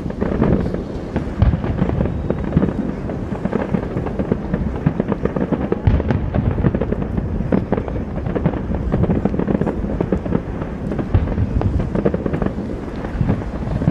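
Fireworks display: a dense, continuous run of bangs and crackling bursts, many overlapping, with heavier booms scattered through.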